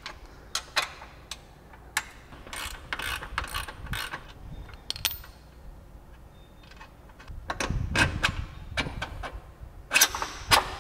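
Hand ratchet with an 18 mm socket undoing the lower radius-rod bolt on a Can-Am Maverick X3's rear suspension: bursts of ratchet clicks as the handle swings back, with a few duller knocks about three-quarters of the way through.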